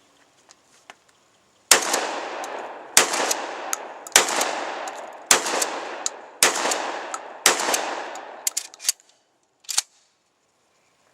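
A Remington 870 12-gauge pump-action shotgun loaded with birdshot is fired six times in quick succession, about one shot a second. Each blast is followed by a long echoing tail. A few short clacks follow after the last shot.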